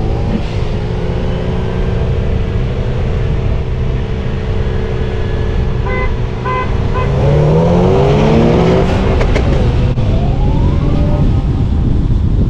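Car engine under hard acceleration with heavy wind and road rumble, its pitch climbing through the gears around seven to nine seconds in. A few short beeps sound about six seconds in.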